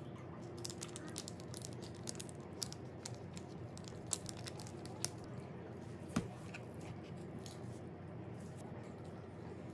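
Small condiment packets of hot sauce and parmesan cheese powder crinkling and tearing as they are opened and shaken over a pizza, a run of light crackles with a few sharper clicks in the middle.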